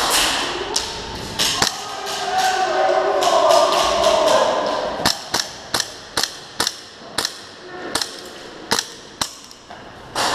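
Airsoft guns firing single shots: sharp cracks at irregular intervals, a few early and about a dozen in quick succession in the second half.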